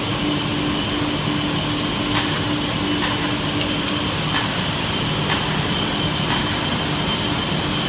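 Holztek HT270E CNC panel saw running: a steady machine hum with a high whine, a lower humming tone that stops about four seconds in, and scattered sharp clicks.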